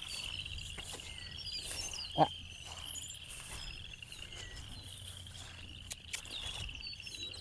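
A steady high-pitched chorus of trilling insects, like crickets, with faint short bird chirps above it.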